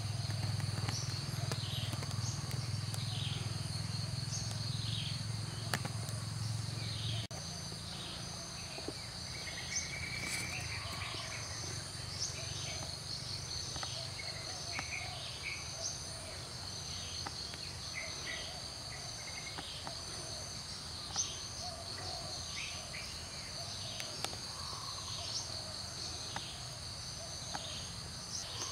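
Outdoor nature ambience of a steady high insect trill, with a bird repeating a short downward-slurred call every second or so. A low hum underneath stops about seven seconds in.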